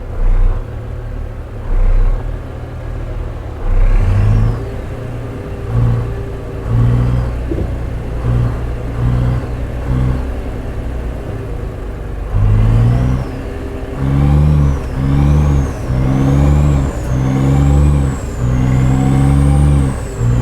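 Heavy truck's diesel engine revving in repeated surges, its pitch climbing with each one. Later a high whistle rises and falls with the revs.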